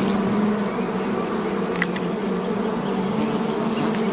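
A swarm of bees or hornets buzzing in a steady, dense low hum, typical of insects swarming in defence of their nest during a raid.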